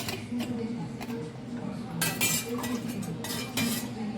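Metal kitchenware clinking and rattling as it is handled, in a few short bursts with pauses between.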